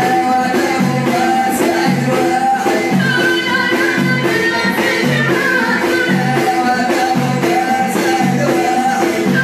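Moroccan Amazigh folk music: a violin played upright on the knee carries a wavering melody over bendir frame drums beating a steady, repeating rhythm, with singing.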